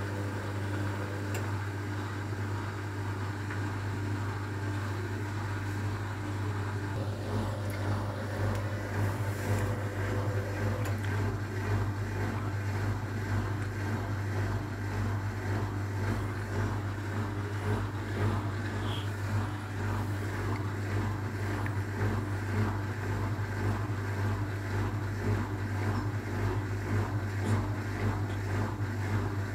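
Hotpoint WMA30 front-loading washing machine running, its drum turning with a steady motor hum that grows a little louder about eight seconds in.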